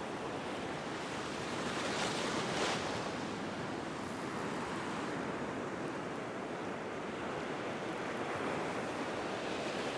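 Ocean surf breaking and white water washing in over the shallows, a steady rush that swells loudest about two to three seconds in.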